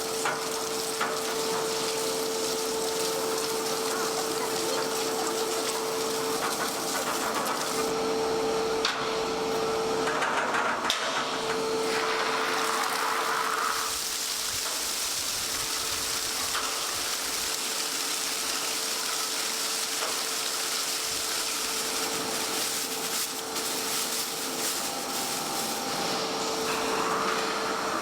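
Large meat processing machine running with a steady hum and a hiss of noise, its tone briefly dropping out a few times.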